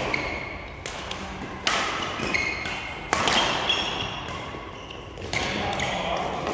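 Badminton rally: rackets striking the shuttlecock about five times, roughly a second or more apart, each hit echoing in a large hall, with short sneaker squeaks on the court floor between hits.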